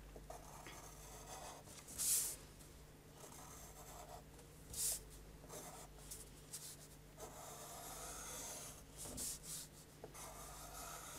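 Pencil lead scratching lightly on paper in short sketching strokes as curved ellipse lines are drawn freehand, with a few louder strokes standing out.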